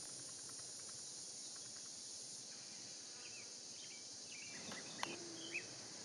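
Faint, steady high-pitched drone of insects calling outdoors, with a few short bird chirps over it and a small click about five seconds in.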